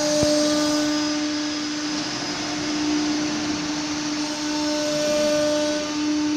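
Furniture CNC machining center running: a steady whine over an airy rush, with one sharp click about a quarter second in.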